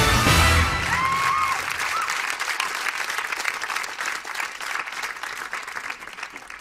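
Studio audience applauding, with a short whistle about a second in; the applause dies away gradually.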